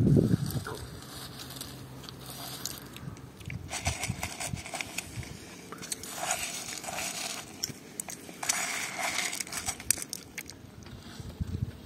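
Dry wheat grains and almond slivers rustling and pattering on a plate as a hand stirs them and lets handfuls fall, in three crackly bursts of about a second each.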